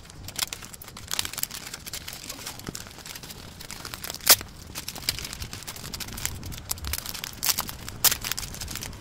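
Thin plastic packaging and paper crinkling and rustling as they are handled, with scattered sharp crackles and two louder clicks, one about four seconds in and one near the end.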